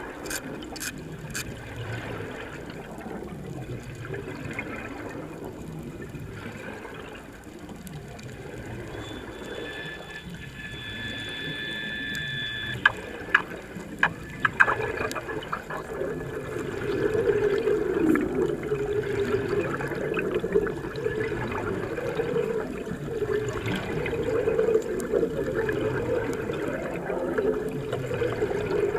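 Water bubbling and churning, with a steady whistling tone for a few seconds near the middle, a few sharp clicks just after it, and louder churning through the second half.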